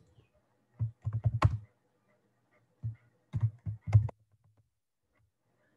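Computer keyboard typing: a quick run of keystrokes about a second in and another short run at around three to four seconds, as a line of text is typed into a spreadsheet cell.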